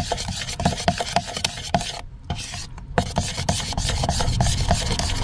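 Metal spoon stirring thick cake batter in a ceramic bowl: rapid scraping and clinking strokes against the bowl, broken by two short pauses about two seconds in. A low rumble builds underneath near the end.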